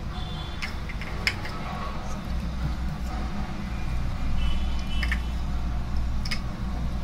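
A steady low background rumble, with a few light clicks scattered through it.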